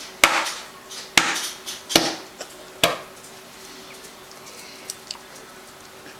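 Four sharp knocks or clatters of hard objects in the first three seconds, each ringing briefly, then a couple of faint ticks.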